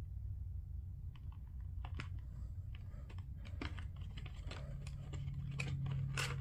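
Scattered light clicks and taps of small plastic parts and packaging being handled, over a low steady hum.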